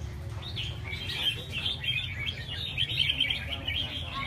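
Several caged red-whiskered bulbuls singing over one another, a dense, continuous run of quick chirping phrases, with a low steady rumble underneath.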